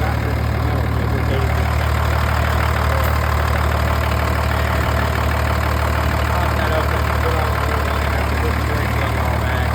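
The 1973 M35A2 deuce and a half's multifuel inline-six turbo diesel idling steadily, with no muffler on its straight-piped exhaust.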